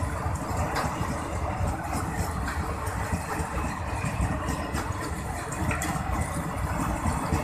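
Freight train of loaded flat wagons rolling past at close range: a steady rumble of steel wheels on the rails, with a few faint clicks.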